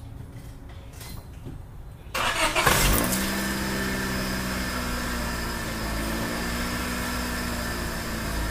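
Car engine cranked by the starter and catching about two seconds in, then idling steadily. Its muffler is filled with soap solution, and the exhaust is pushing it out of the tailpipe as bubbles.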